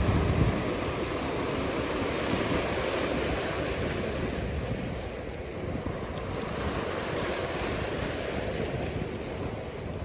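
Ocean surf washing and rushing in a steady noisy wash with wind, a little louder in the first half second and easing after.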